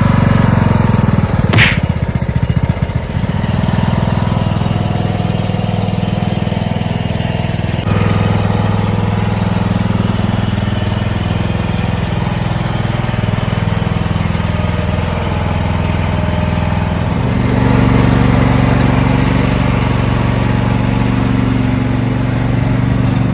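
Toro Wheel Horse hydrostatic lawn tractor's engine running steadily, just started on a new battery. There is a brief high squeal about a second and a half in, and the engine runs louder for the last several seconds.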